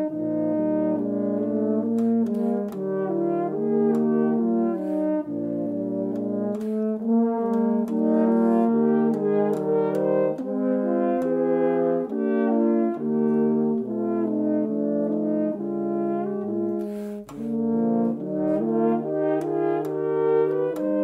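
A trio of 19th-century Gautrot horns in F with Stoelzel valves playing together in three-part harmony: a moving upper melody over longer-held low notes.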